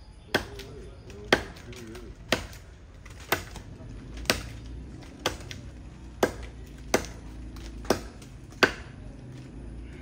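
Machete blade chopping into jackfruit tree wood in a steady rhythm of sharp strikes, about one a second.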